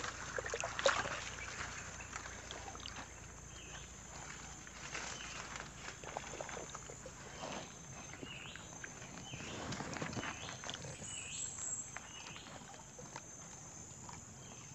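Floodwater sloshing and splashing in irregular surges as a person wades through deep water, each stride pushing through the water. Faint short high chirps from a small animal repeat about once a second behind it.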